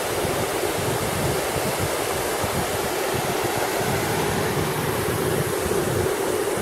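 Waterfall rushing steadily: a dense, even noise of falling water with no letup.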